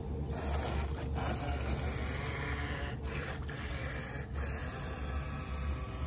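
Small electric motor of a remote-control speedboat running at speed as the boat cuts across the water, a steady mechanical buzz.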